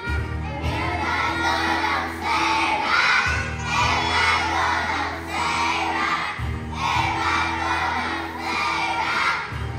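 A class of kindergarten children singing loudly, close to shouting, along with backing music that has a steady bass line.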